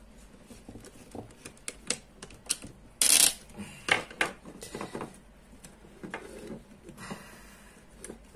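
Small clicks and taps of wires and a plastic wall switch being handled, with a louder scraping rustle about three seconds in followed by a couple of sharp knocks.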